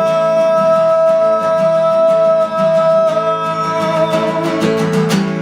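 Acoustic guitar strumming, with a long held high note over it for the first three seconds or so that then fades out.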